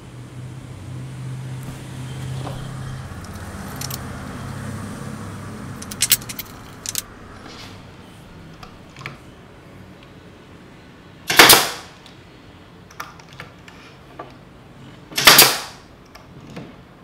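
Pneumatic brad nailer firing twice, about four seconds apart, each shot a sharp crack with a short blast of exhaust air, driving brad nails into the plywood and 2x4 frame. Before the shots come a few lighter clicks of handling, over a low hum that fades about six seconds in.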